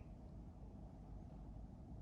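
Near silence: a faint, steady low rumble of background noise.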